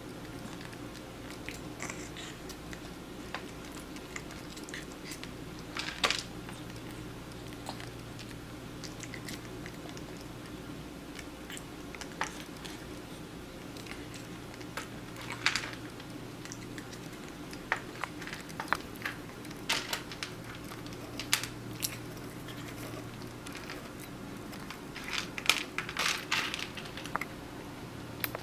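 Persian kitten being hand-fed with chopsticks from a plastic bowl: scattered short clicks and crunches of chopsticks and chewing, coming in small clusters over a steady low hum.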